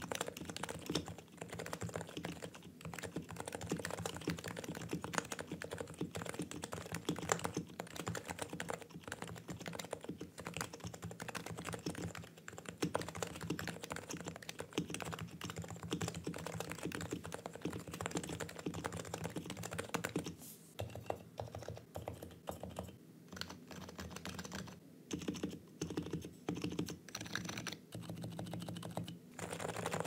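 Typing on a Realforce 2 PFU Limited Edition TKL keyboard with 45 g Topre electrostatic capacitive switches. Fast, continuous keystrokes run for about twenty seconds, then the typing slows into short bursts with brief pauses.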